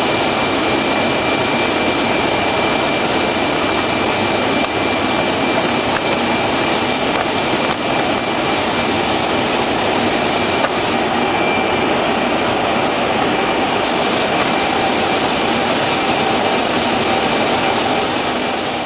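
FidiaGraf NAVONA shopper bag making machine running: a loud, steady mechanical noise with a thin high whine through it, fading out near the end.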